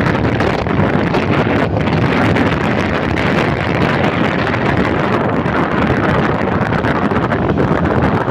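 Loud, steady wind rushing over the microphone of a moving vehicle, with road and engine rumble underneath.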